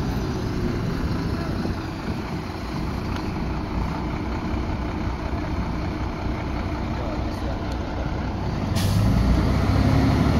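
Heavy diesel truck engine running steadily, with a brief hiss of air, like an air brake releasing, about nine seconds in.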